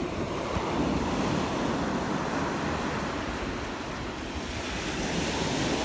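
Ocean surf washing onto a beach, a steady rush of waves with wind on the microphone; the wash swells again about four and a half seconds in.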